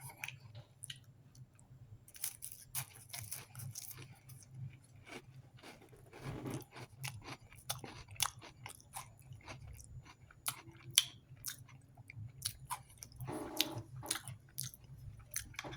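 Crackers topped with jalapeno cheese spread being chewed, with irregular crunches throughout, over a steady low hum. The crackers are a little stale but still crunchy.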